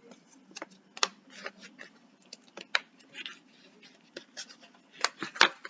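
Paper and cardboard of a vinyl record's sleeves and jacket being handled: scattered clicks, scrapes and rustles, loudest near the end.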